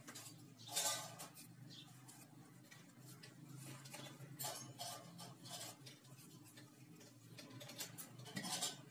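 Kitchen knife peeling a raw potato by hand: faint, irregular scrapes and clicks of the blade cutting through the skin, the loudest about a second in, over a steady low hum.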